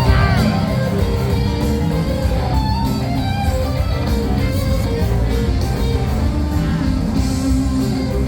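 Music with guitar playing steadily.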